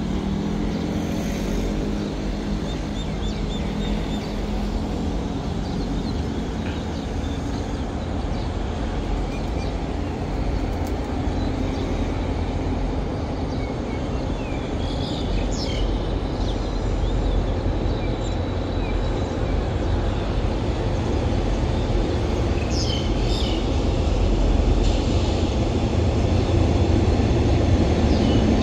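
Low, steady rumble of a distant Alsthom diesel-electric locomotive, growing slowly louder as it approaches, with a few birds chirping briefly around the middle and later on.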